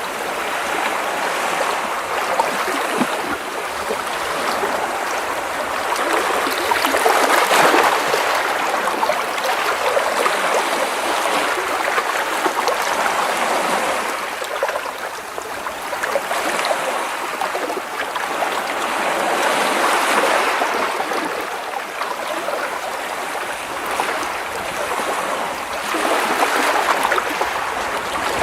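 Small sea waves washing and splashing against rocks, a continuous sloshing of water that swells and eases every few seconds.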